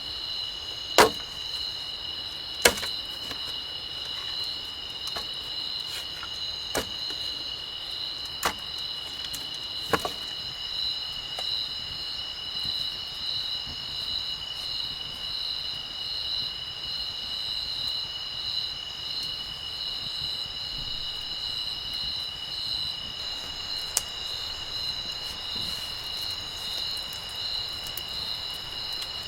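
A steady, high-pitched insect chorus keeps up a continuous shrill buzz with a slight pulsing. Several sharp knocks or clicks break through it, mostly in the first ten seconds and once more about 24 seconds in.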